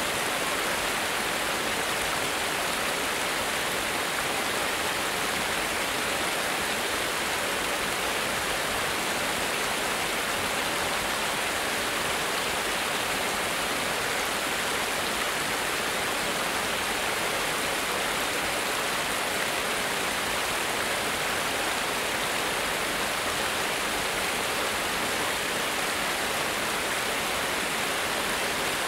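A small cascade: water running down a sloped stone ledge into a creek, a steady, unbroken rush.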